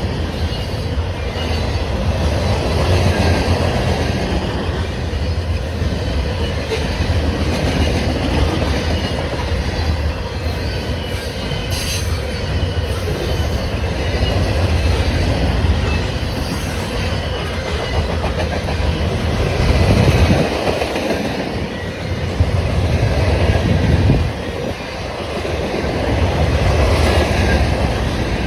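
Freight cars of a Canadian National grain train rolling past, a steady loud rumble of steel wheels on rail, easing off briefly twice in the last third.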